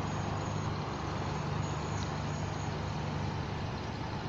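A vehicle engine running steadily at idle, a low even hum with street noise around it.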